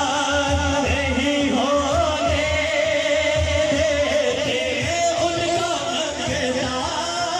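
Male voice singing a naat, an Urdu devotional poem, in long, drawn-out wavering notes over a low pulsing beat, amplified over a PA in a large hall.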